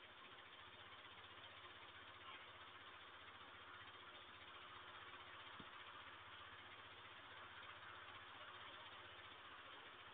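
Near silence: a steady hiss with a faint low hum underneath, and one soft click about five and a half seconds in.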